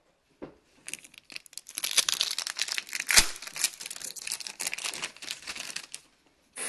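Trading card pack wrapper crinkling as it is handled and torn open, with one sharp rip about three seconds in. The crackling starts about a second in and stops near the end.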